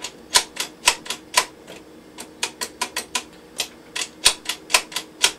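About twenty sharp mechanical clicks in quick, uneven succession from an Adams Rite 4300 electrified deadlatch and its momentary push-button switch as the button is pressed and released over and over.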